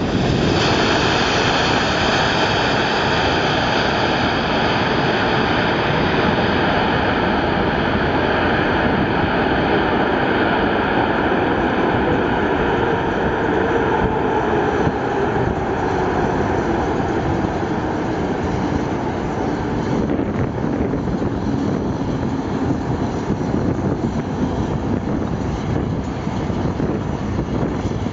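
Boeing 747-8I's four GEnx turbofan engines running loud as the jumbo jet rolls down the runway past and then away. A steady heavy jet rumble carries a high fan whine that fades about halfway through as the aircraft recedes.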